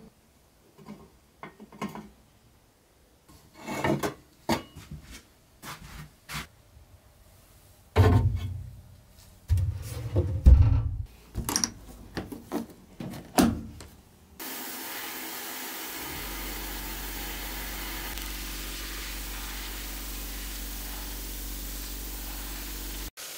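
Knocks, clicks and scraping as rusty metal toy parts are handled and a blast-cabinet door latch is worked. A little past halfway, a sandblaster gun starts up with a steady hiss, stripping rust and old paint from a steel Tonka truck part inside the blast cabinet, with a low hum underneath.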